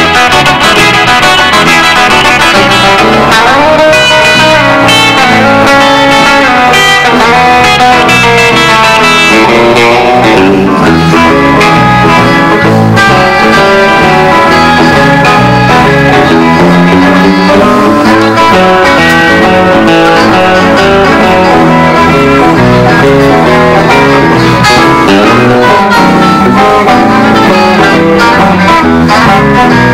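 Live country band playing loudly on electric and acoustic guitars, bass guitar and drums.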